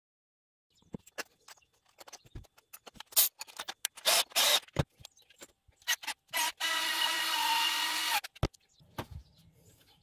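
Clicks and rattles of small screws and hard plastic parts being handled. A Bosch cordless screwdriver's small motor runs steadily for about a second and a half, starting a little past the middle.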